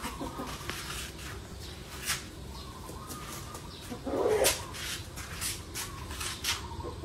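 A bird calling, one louder low call about four seconds in, over scattered short clicks and a steady low background hum.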